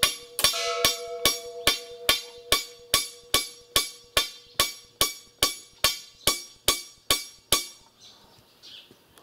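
Steady hammer blows on metal, about two and a half a second, each leaving a short clear metallic ring; the hammering stops suddenly near the end.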